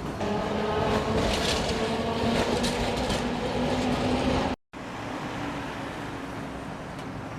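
A motor vehicle passing close by, its engine hum steady and rising slightly in pitch over street noise. About four and a half seconds in, the sound cuts off abruptly and comes back as quieter traffic noise.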